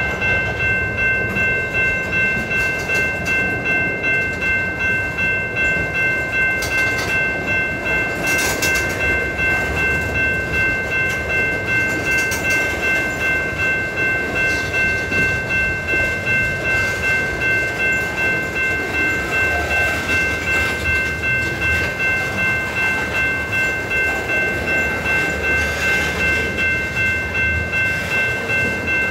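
Freight cars of a BNSF manifest train, open hoppers then tank cars, rolling past with a steady rumble and a regular, rapid pulse in the wheel noise. A steady high-pitched ringing tone runs through it all.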